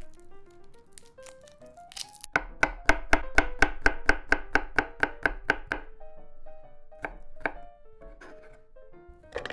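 Chef's knife slicing a garlic clove on a wooden cutting board: a quick, even run of about five chops a second starting about two seconds in and lasting some three seconds, then a few single chops.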